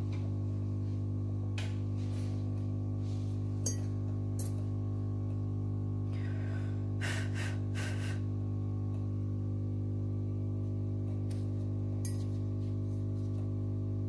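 A steady low electrical hum, with a few light clicks and scrapes of metal tweezers against a phone's circuit board.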